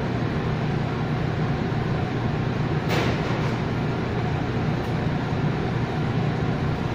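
Steady low hum and air rush of a commercial bakery's ventilation and machinery. One sharp knock comes about three seconds in, and a fainter tick follows near five seconds.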